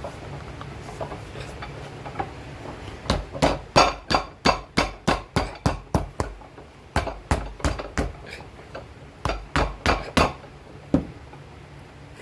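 Hammer blows on a shoe's glued soling layers, pounding them down to set the bond. The sharp strikes come in three quick runs, about three a second, with one last blow near the end.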